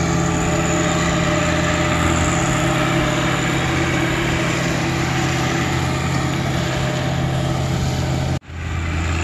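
John Deere 1025R subcompact tractor's three-cylinder diesel running steadily while it drives an offset flail mower through tall grass, a steady low drone. The sound cuts out for an instant near the end.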